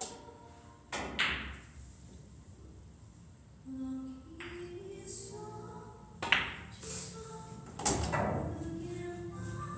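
A pool shot: a sharp clack of cue and balls striking about six seconds in, with another knock about a second and a half later, over background music and faint talk.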